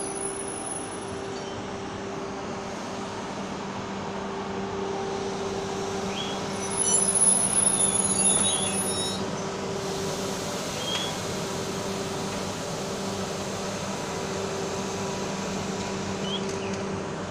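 Steady engine hum of a demolition excavator working, with faint squeaks and clinks. The sound swells for a couple of seconds about seven seconds in.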